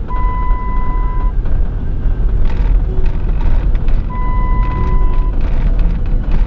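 Steady low rumble of a car driving on the freeway, heard from inside the cabin. Two steady high electronic beeps, each about a second long, sound about four seconds apart.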